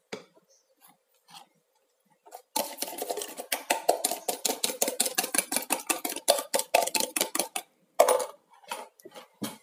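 A spoon stirring quickly in a bowl, clinking against the sides for about five seconds, followed by a couple of single knocks of utensil on bowl.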